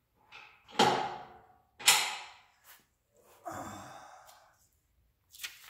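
Two sharp metal clanks about a second apart, each ringing briefly, as steel front-suspension parts (control arm, caster shims, bolts) are knocked together while being fitted, followed by a soft click and a breathy exhale.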